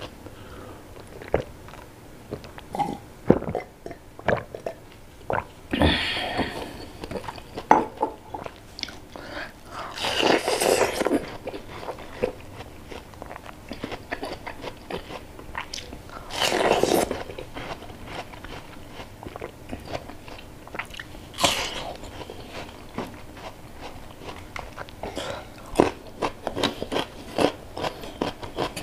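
Close-miked eating: chewing and crunching of crispy fried fish and rice eaten by hand, with many sharp crunches throughout. A few louder mouth sounds about a second long stand out, one around the watermelon bite midway.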